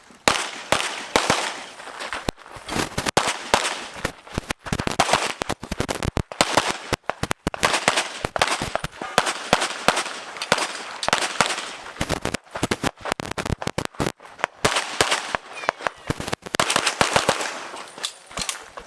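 Rapid pistol fire from an IPSC Open-division competition handgun during a stage run: many quick shots in clusters, with short pauses between strings.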